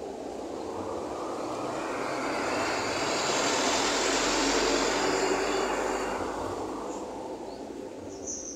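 A passing vehicle: a rushing noise that swells to a peak about halfway through, then fades away.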